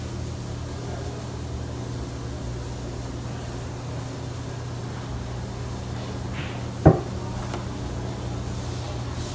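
Steady low mechanical hum, with one sharp knock about seven seconds in.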